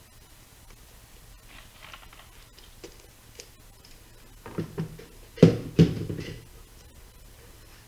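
Handling noise from a Lexan RC body shell being worked on by hand: faint rustling and a couple of light clicks, then a run of knocks, the two loudest about five and a half and six seconds in.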